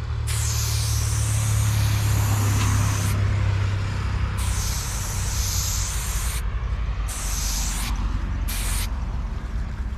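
A hand spray bottle spraying watered-down paint in four hissing spurts: a long one of about three seconds, one of about two seconds, then a short one and a very brief one near the end. A steady low rumble runs underneath.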